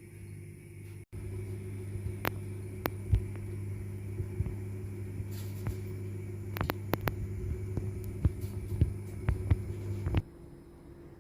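Steady low hum of a running electrical appliance, with scattered light clicks and taps over it; the hum cuts off abruptly about ten seconds in.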